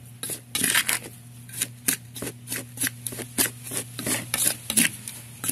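Metal spoon stirring a dry, gritty mix of powdered eggshell, bone meal and wood ash in a plastic bowl: a quick, uneven run of short scrapes and rustles, about two or three a second.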